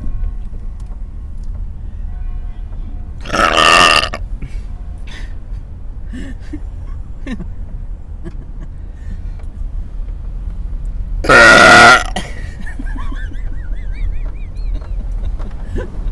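Two loud human belches, one about three seconds in and a louder one near twelve seconds, over the steady low rumble of a car on the road.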